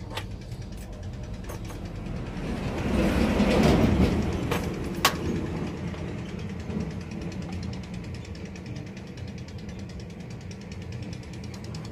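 A steady low hum and rumble, with a swell of louder rumbling noise that rises and fades a few seconds in. A single sharp click comes about five seconds in.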